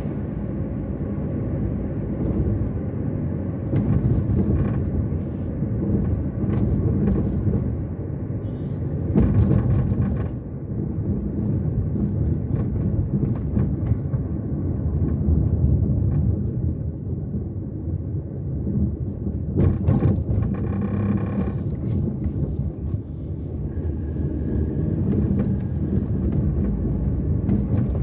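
Car driving, heard from inside the cabin: a steady low rumble of engine and tyres on the road. A few brief louder noises break through, about ten and twenty seconds in.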